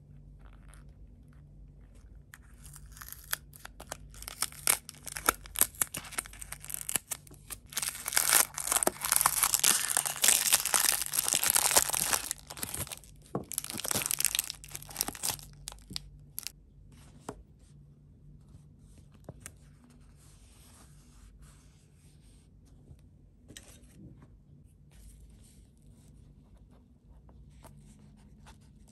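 Packaging being torn open and crinkled by hand. The tearing and crackling is loudest through the middle stretch, then gives way to light rustling.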